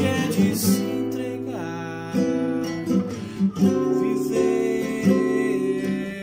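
Classical acoustic guitar played with the fingers: chords and single notes plucked and left ringing, changing every half second or so.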